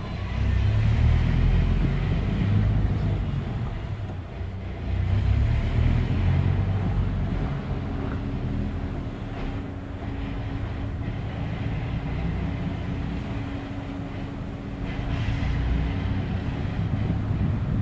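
Subaru BRZ's FA20 flat-four engine and manual gearbox at low speed, with a rapid low rattle (ガラガラ) under the engine rumble, which swells twice and then settles. The owner suspects transmission gear rattle; the dealer puts it down to the reverse-gear synchro and calls it harmless.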